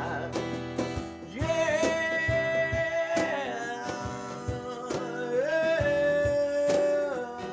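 A man singing two long held notes, the second a little lower, over a strummed acoustic guitar.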